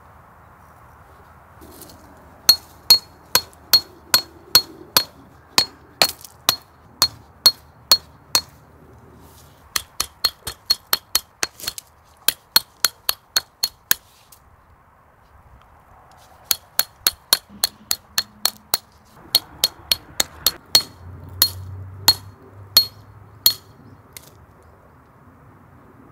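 Camping hammer driving a metal tent peg into gravel, each blow a sharp strike with a short metallic ring. The blows come in three runs of about two to three a second, with short pauses between them, and stop a couple of seconds before the end.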